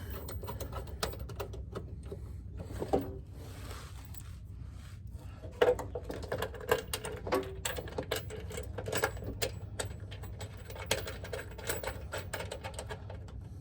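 Irregular metallic clicks and taps of bolts being threaded by hand into a truck step rail's mounting bracket.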